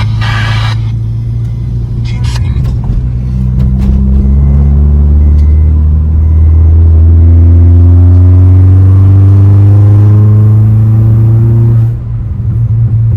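Straight-piped, ECU-remapped Suzuki Baleno engine pulling under acceleration, its note rising slowly and steadily for several seconds, then easing off about twelve seconds in.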